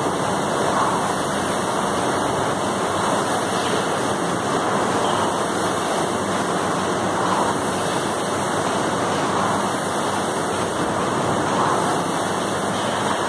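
Air rowing machine's fan flywheel whooshing steadily, surging with each pull stroke about every two seconds.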